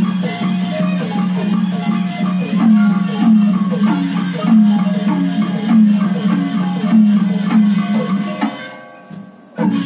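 Burmese traditional ensemble music: quick melodic runs over a steady, pulsing low beat. It fades out near the end, and one short stroke follows.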